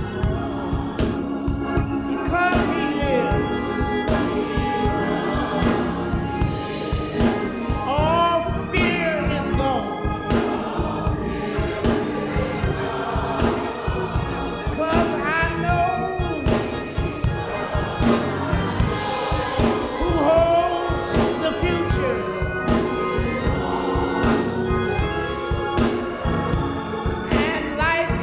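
Gospel song: a choir singing with instrumental accompaniment over a steady beat.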